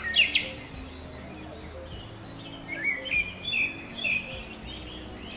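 Birds chirping in a forest: a quick call at the start and a run of short chirps around the middle, over a steady low background rumble.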